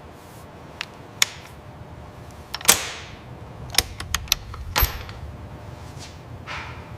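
A series of sharp clicks and knocks, irregular and a second or so apart, the loudest a little under three seconds in with a short ring after it.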